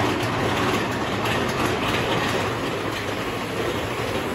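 Big Thunder Mountain Railroad mine-train roller coaster running along its track through a tunnel, a steady rolling noise of the wheels on the rails.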